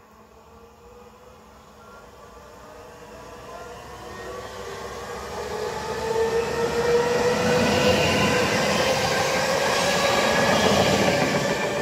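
PolRegio EN62A (PESA Elf) electric multiple unit approaching and running in beside the platform. It starts faint and grows loud, with its running noise and a drawn-out tone slowly falling in pitch.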